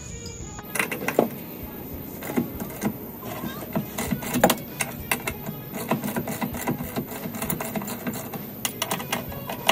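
Irregular metallic clicks and clinks of hand tools on steel mounting hardware, including a socket wrench ratcheting on a bolt.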